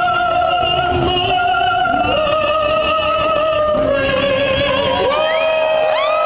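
A woman singing the anthem, holding long notes with a wavering vibrato. About five seconds in, the crowd starts cheering and whooping over the final note.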